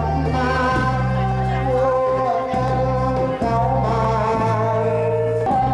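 Music: a wavering sung melody over instrumental accompaniment with a steady bass line that changes note about once a second.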